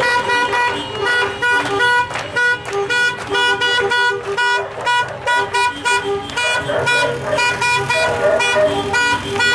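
Car horns honking in many short, rhythmic toots, repeated through the whole stretch, over the noise of a crowd on foot.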